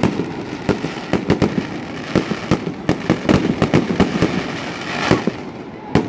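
Aerial fireworks display: a rapid, uneven string of sharp bangs from bursting shells over a steady crackle, with a louder rush of hiss about five seconds in.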